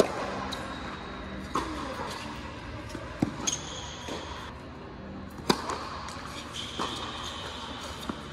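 Tennis serve and rally on an indoor court: the serve opens, then about six sharp racket strikes on the ball, one every second or two, with ball bounces between them, each hit ringing in the large hall.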